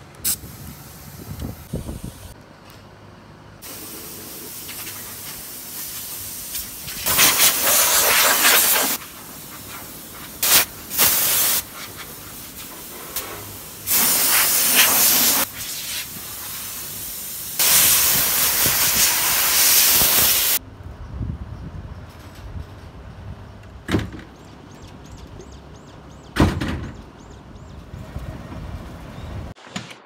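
Pressure washer jet spraying water onto a McHale bale wrapper: a loud hiss that starts a few seconds in and comes in several long bursts, stopping about two-thirds of the way through, after which a few sharp knocks follow.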